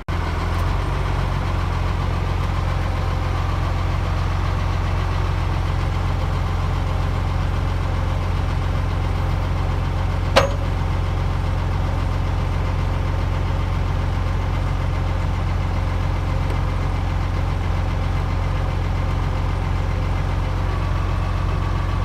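Tractor engine running steadily, heard from inside the cab, while the dump wagon's box is hoisted to tip out its load of sawdust. A single sharp click about ten seconds in.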